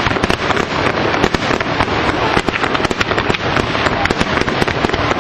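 Fireworks display: many shells bursting in quick succession, a dense, unbroken crackling and banging.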